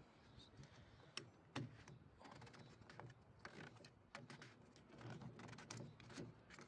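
Faint clicks and short scrapes of a hand gripping and twisting open the plastic cap of an Audi A6's coolant expansion tank.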